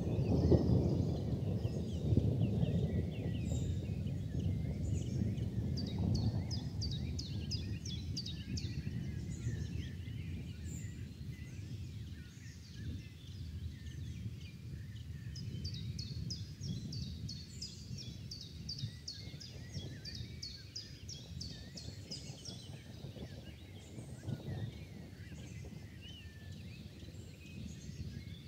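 Thunder rumbling, loudest at the start and fading over the first dozen seconds into a lower, steadier rumble. Rapid high chirping comes in two runs, a few seconds in and again in the middle.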